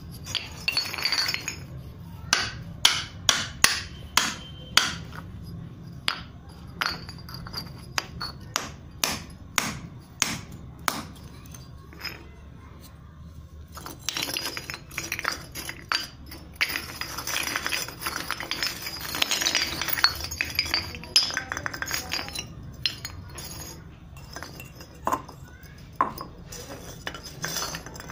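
Unglazed terracotta clay pots, plates and lamps clinking and knocking against one another as they are picked up and set down, in sharp separate knocks. In the middle comes a stretch of dense, crackly scraping and rubbing of clay, and a few more knocks follow near the end.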